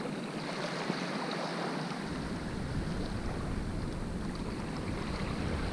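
Wind blowing across the microphone over the steady wash of surf, with a low wind rumble setting in about two seconds in.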